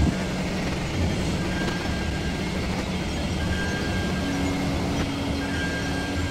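Experimental electronic drone from a Ciat-Lonbarde Cocoquantus and a Korg Volca FM: a dense rumbling bed with a steady low hum, and a second, higher held tone coming in about four seconds in, with faint high whistling tones coming and going above.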